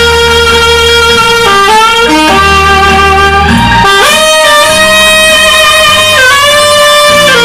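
Saxophone playing a slow melody of long held notes, each sliding or stepping to the next every second or two, over an accompaniment with a low bass line.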